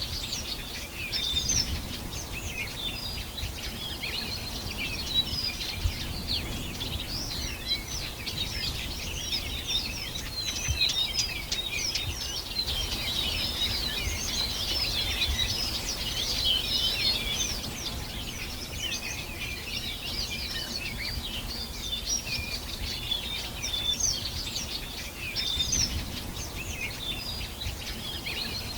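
Many songbirds singing at once: a dense, continuous chorus of overlapping high chirps and trills, over a low background rumble.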